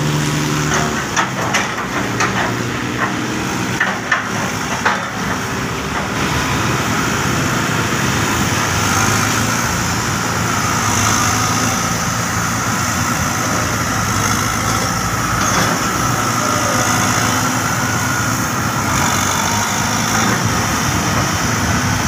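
Diesel engine of a CAT wheeled excavator running steadily while it works its boom and bucket, with a few sharp knocks in the first five seconds.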